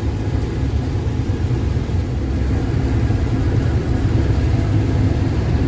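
Combine harvester running steadily while harvesting corn, a continuous low engine rumble.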